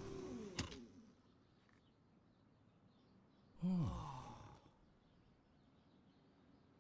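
A person's voice making one short sigh-like sound that falls in pitch, about halfway through.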